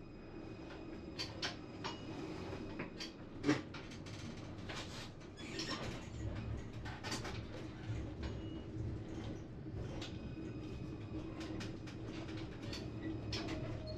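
Tram running slowly with a steady electric hum, with irregular sharp clacks and knocks from the running gear, the loudest about three and a half seconds in. A low rumble builds up from about halfway.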